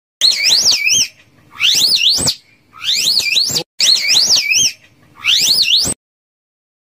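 Slow loris calling: five high, warbling whistles, each under a second and swooping up and down in pitch, repeated about once a second.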